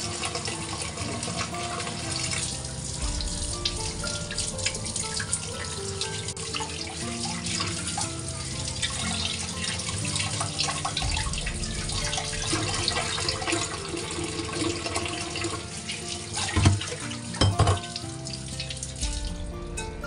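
Water running from a kitchen tap into a sink, splashing steadily, over soft background music. Near the end come two louder knocks.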